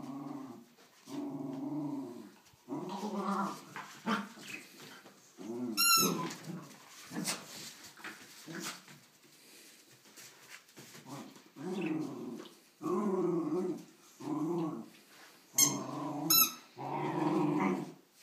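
Two dogs, a Rhodesian ridgeback puppy and a Jack Russell terrier, growling in play: about a dozen growls of a second or so each, with short pauses between, and a few short, sharp high squeals among them.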